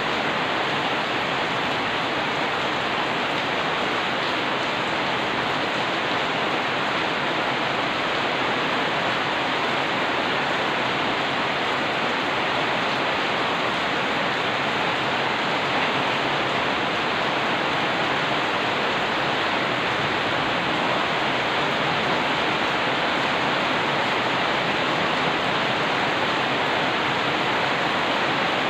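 Steady heavy rain falling on the street and surfaces outside, an even hiss with no thunder and no single drops standing out.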